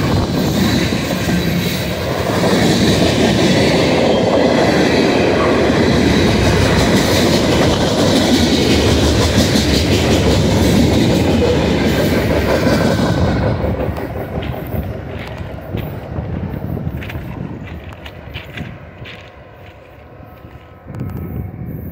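Freight train tank cars and covered hoppers rolling past close by, their wheels clattering over the rails. About 13 seconds in, the last cars go by and the sound fades away as the train moves off.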